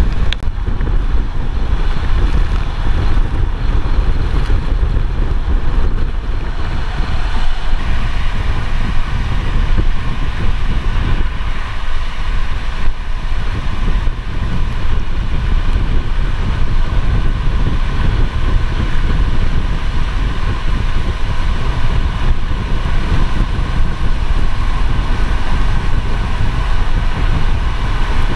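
Strong storm wind buffeting the microphone of a vehicle-mounted camera near a tornado, a loud, fluctuating low rumble over the noise of the vehicle driving on a wet road. A faint steady whine becomes clearer from about eight seconds in.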